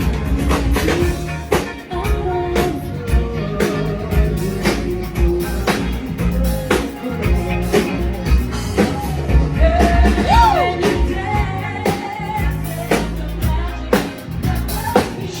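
Rock band playing a song: a singer's melody over drum kit and guitar, with steady drum hits.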